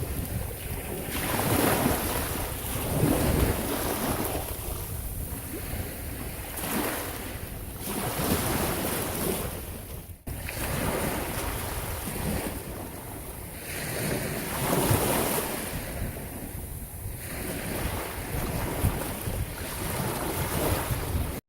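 Strong wind buffeting the microphone over surf breaking on the shore, swelling and easing in gusts every few seconds, with a brief drop-out about halfway through.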